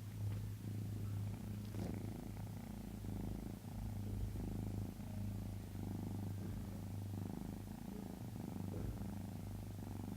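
Domestic cat snoring in its sleep: a continuous low rumble that swells and eases with its breathing.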